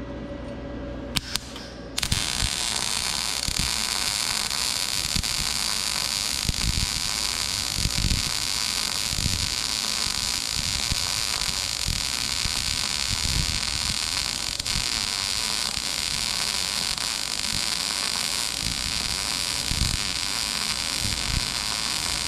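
MIG welding arc from a YesWelder Firstess MP200 laying a continuous bead on 1/8-inch mild steel. After a couple of short clicks it strikes about two seconds in and runs on steadily, with small irregular pops through it.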